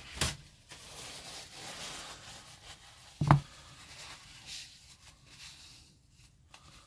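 Plywood soft-jaw pieces handled on a workbench: soft rubbing and scraping, a sharp click just after the start, and one solid wooden knock about three seconds in.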